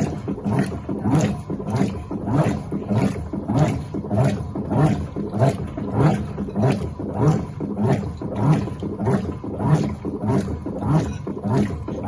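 Electrolux LTA15 top-loading washing machine agitating during its rinse, the agitator swishing clothes and water back and forth in a steady, slow rhythm of strokes, a little under two a second.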